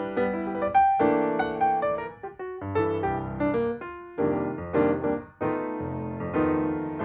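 Background piano music: a gentle melody of struck notes and chords, with short pauses between phrases.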